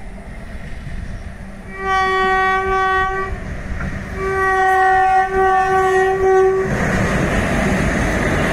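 Indian Railways electric locomotive sounding its horn in two long, steady blasts, the second longer, as it approaches hauling a freight train. Near the end the loud rumble and wheel noise of the locomotive passing close take over.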